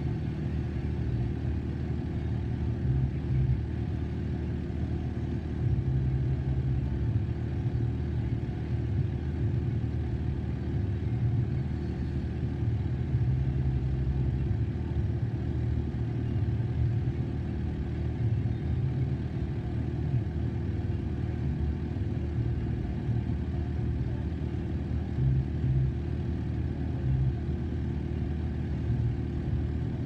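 Steady low rumble heard from inside a stopped car while a freight train of tank cars and gondolas rolls past, with no distinct wheel clicks or horn.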